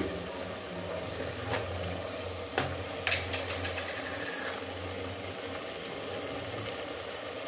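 Onion, ginger-garlic and spice masala frying in an aluminium pot, a steady sizzle, while a metal ladle stirs it, with a few sharp clinks of the ladle against the pot between about one and a half and three seconds in.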